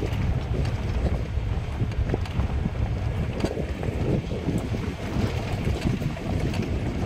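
Vehicle driving along a rough dirt forest track, a steady low rumble with scattered small knocks and rattles, and wind buffeting the microphone.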